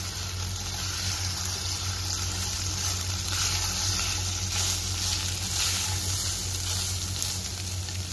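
Marinated chicken pieces sizzling in a pot now that their cooking water has boiled dry, stirred with a spoon. A steady sizzle throughout.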